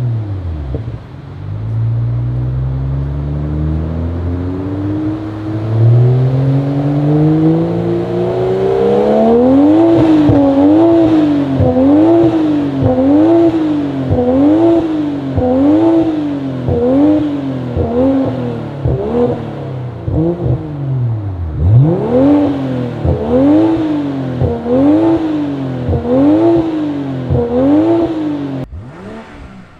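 BMW M340i/M440i B58 turbocharged straight-six sounding through a performance exhaust. The engine first climbs in pitch through two pulls with a break between them. It is then revved up and down about once a second in a wavering note, with one deeper dip about two-thirds through, and the sound cuts off abruptly near the end.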